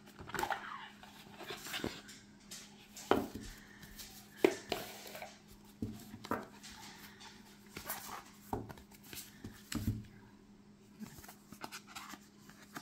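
Cardboard card box and its packaging being handled and opened by hand: scattered rustles, taps and light knocks, irregularly spaced.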